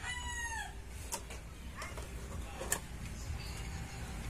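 A rooster's crow trails off with a falling pitch in the first second. Then come two sharp clicks, about a second and a half apart, from the Mega Pro DOREMI D-750 DVD player as its tray is shut on a disc and it starts loading.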